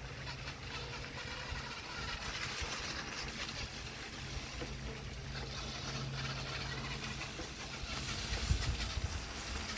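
A child's electric balance bike rolling along a dirt and leaf-covered trail, with a steady low hum and rustling, and a few louder low rumbles near the end.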